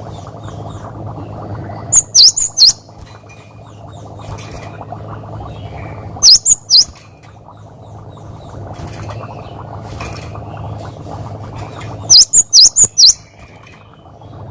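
Cinereous tit (gelatik batu) calling in loud, sharp 'wucit' chirps, each note dipping then rising, in three quick bursts of three to six notes, over a steady low hum.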